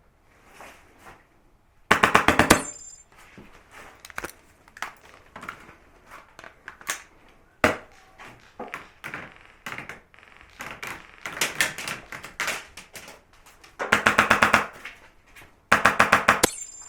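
Airsoft rifle firing three short full-auto bursts of rapid clicking shots, about two seconds in, at about fourteen seconds and near the end, with scattered single pops and clicks between them.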